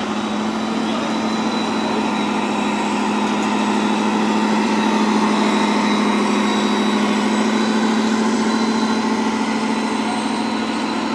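Scale diesel truck engine sound from an RC truck's sound module, a steady idling hum played through the model's small speaker.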